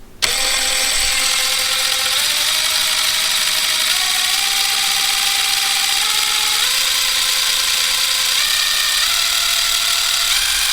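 DeWalt 12V Xtreme 1/2-inch impact wrench (DCF901) running free with no load, its motor whining steadily. The pitch steps up several times as the variable-speed trigger is feathered further in.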